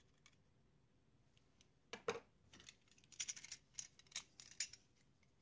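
Small clicks and rattles of a screwdriver and plastic parts against the gears and metal chassis of a Tascam 464 cassette transport as the plastic gear lock is removed. There is one louder knock about two seconds in, then a quick run of clicks.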